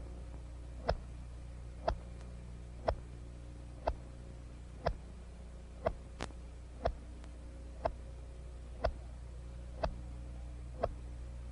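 A timer ticking steadily once a second, sharp single clicks marking off the seconds of the flow sequence, with one weaker extra click about six seconds in. A low steady hum from the old film soundtrack runs underneath.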